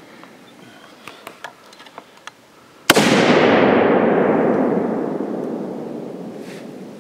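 A single rifle shot from a scoped single-shot primitive-weapon rifle about three seconds in: a sharp crack followed by a long echo that fades away over about four seconds. A few light clicks come before it.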